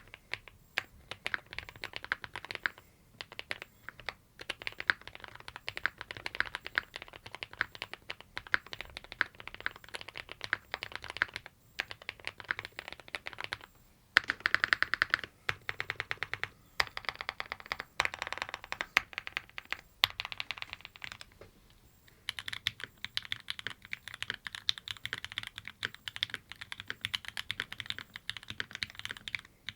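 Typing on mechanical keyboards: fast runs of key clacks with short pauses. The Space80 is typed on first, then the Mode Sonnet after a pause about two-thirds of the way in.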